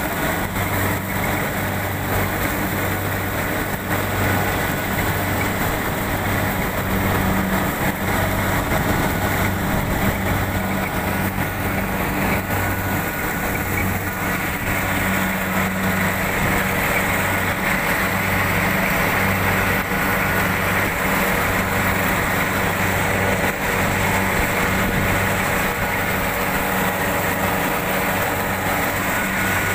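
Rice combine harvester's engine and machinery running steadily while it harvests, a constant low hum with no change in speed.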